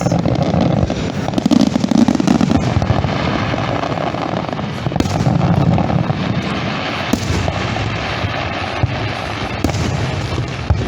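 Aerial fireworks display: a dense run of crackling and popping with the thuds of shells bursting.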